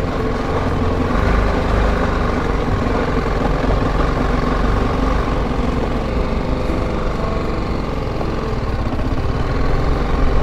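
BMW G310GS's single-cylinder engine running steadily as the motorcycle is ridden along a rough gravel and rock track.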